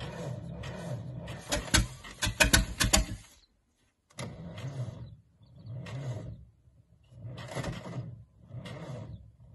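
IH T-9 crawler dozer's engine being cranked over for a cold start at −30 °C, churning in a steady rhythm of about two to three pulses a second. About one and a half seconds in comes a burst of loud, sharp knocks. After a brief dropout, the pulses return more slowly and unevenly.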